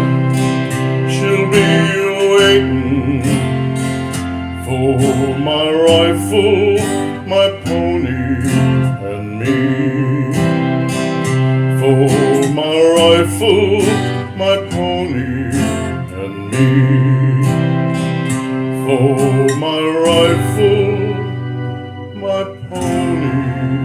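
Country-western music led by guitar, with a steady bass line under a wavering melody.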